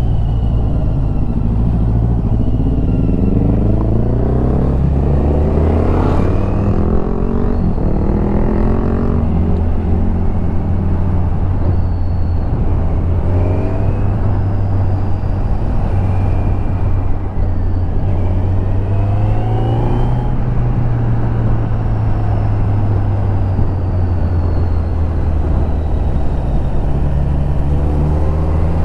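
Kawasaki Z900's inline-four engine through its stock exhaust, heard from on board while riding: the pitch climbs several times as it accelerates and drops back as the throttle rolls off, over a steady low drone.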